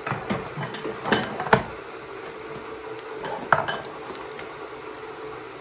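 Dishes and kitchen utensils clinking and knocking against one another, as a handful of separate sharp knocks. The loudest come about a second and a half in and again about three and a half seconds in.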